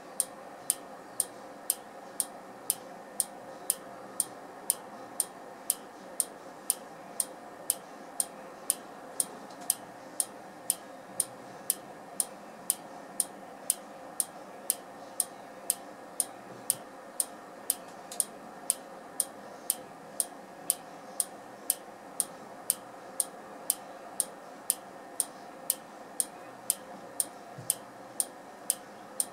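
Prototype Z700U trigger-tube ring-counter clock ticking: a steady run of sharp, evenly spaced ticks, a little more than one a second, over a faint steady hum as it counts.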